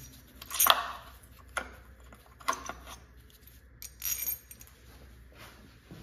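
Loose metal tools and engine parts clinking as they are handled: four sharp clinks spread over the first four seconds.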